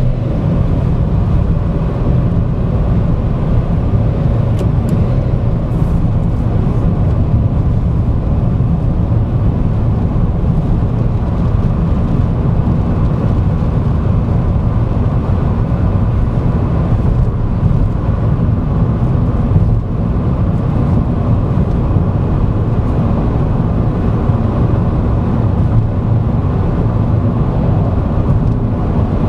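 Steady engine and road noise of a Vauxhall Agila driving along, heard from inside the car's cabin.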